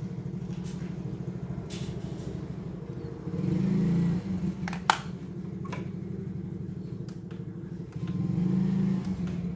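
A small engine running steadily in the background, with an even low pulse, grows louder twice for about a second each. A single sharp click comes about five seconds in, with a few faint ticks around it.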